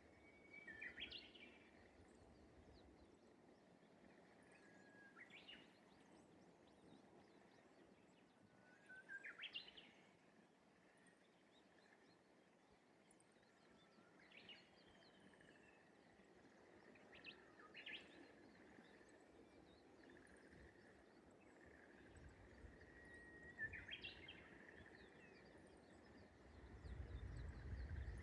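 Japanese bush warbler singing its song about six times, one every four seconds or so: each a held whistle that breaks into a quick flourish. A low rumble comes in near the end.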